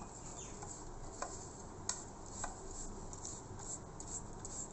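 Silicone pastry brush swept over oiled butter paper in a metal cake tin: faint soft brushing and papery rustling, with three light clicks in the middle.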